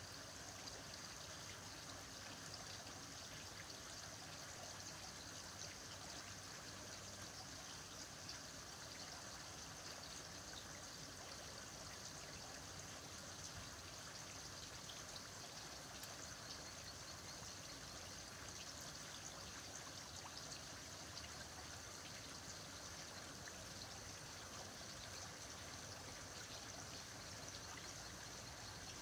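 Faint, steady trickling of aquarium water.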